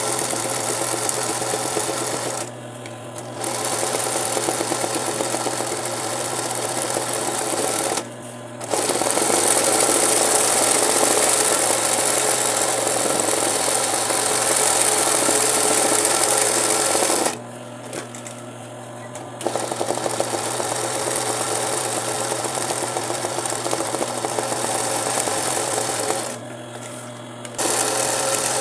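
Singer 20U industrial zig-zag sewing machine stitching a satin-stitch zig-zag around a fabric appliqué. It runs in long stretches and stops four times for a second or two as the hoop is turned, while a low hum carries on through each stop.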